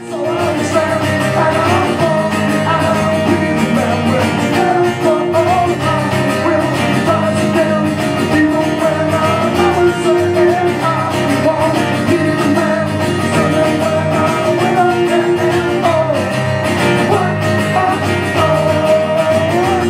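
Live guitar music with a voice singing.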